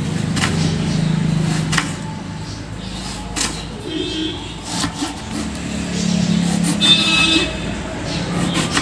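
Kitchen knife slicing through a red onion and striking a wooden chopping board: a few sharp taps about a second and a half apart. Under them runs a steady low, engine-like hum.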